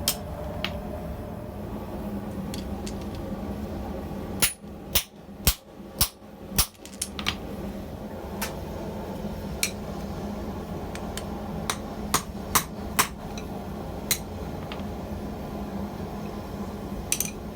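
Blacksmith's hand hammer striking steel on an anvil while forging tongs: a quick run of about five blows a few seconds in, then scattered single strikes, over a steady low hum.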